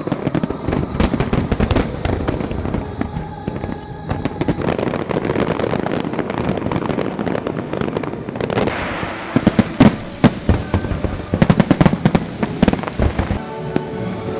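Fireworks going off in quick succession: a dense run of bangs and crackling that grows louder about two thirds of the way through, with a cluster of sharp bangs.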